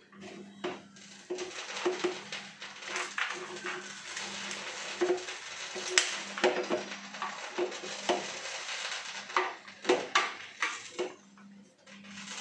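Hands mixing and kneading a stiff wheat-flour adai dough in a glass bowl: irregular clicks, taps and rustles of fingers and dough pressing against the bowl.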